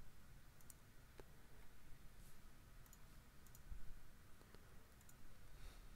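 Faint computer mouse clicks, a handful spaced irregularly, over quiet room tone.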